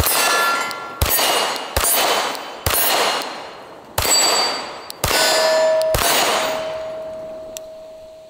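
Glock 19 9mm pistol with a Radian Ramjet barrel and Afterburner compensator fired in a slow string of shots about a second apart at a 6-inch steel plate, each hit making the steel ring. The compensator makes the shots noticeably louder. After the last shot, about six seconds in, the plate's ring fades away.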